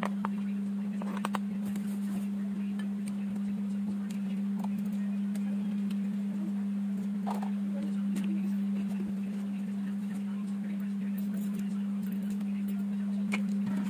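A steady low hum held at one pitch, unchanging and the loudest thing throughout, with faint scattered clicks of a metal spoon against a bowl as a salad is mixed.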